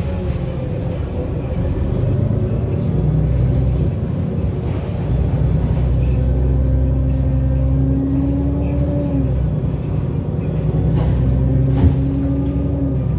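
Cabin sound of an Otokar Kent C-12 city bus under way: a steady low engine and road rumble. A whining tone comes in twice for a few seconds, and there is a single sharp knock near the end.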